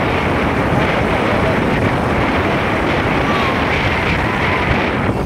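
Wind buffeting a phone's microphone on a moving motorbike, over steady road and traffic noise.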